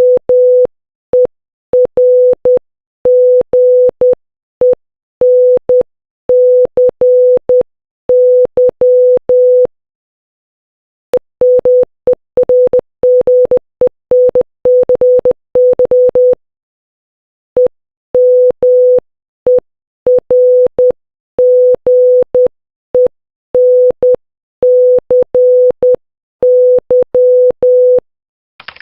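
Morse code for "emergency" (· −− · ·−· −−· · −· −·−· −·−−) sent as a single steady beep tone of about 500 Hz in short and long beeps. It is keyed slowly at first, faster in the middle and slowly again near the end, with a faint click as each beep starts and stops.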